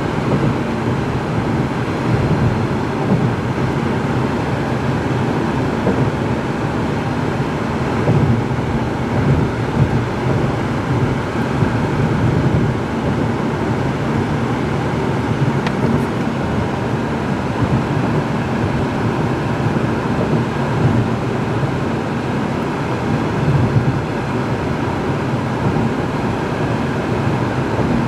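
Steady road and engine drone of a car driving, heard from inside the cabin, with the low rumble strongest and no change in pace.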